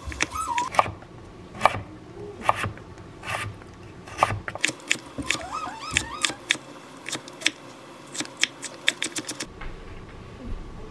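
Chef's knife chopping on a wooden cutting board: sharp knocks at an uneven pace as fishcake and then carrot are sliced into thin strips. The chopping stops shortly before the end.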